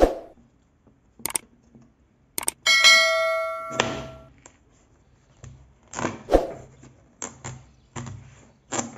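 Objects being handled: a sharp knock at the start and scattered knocks and clatters, with a struck metal object ringing out in a clear ding for about a second and a half a little before the middle.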